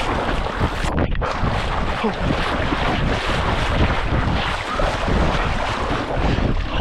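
Strong wind buffeting the microphone, with choppy water splashing underneath.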